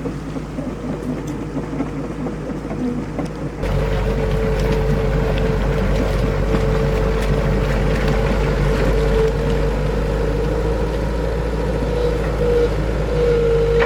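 Excavator's diesel engine running, then speeding up under load about four seconds in, with a steady whine over the engine rumble.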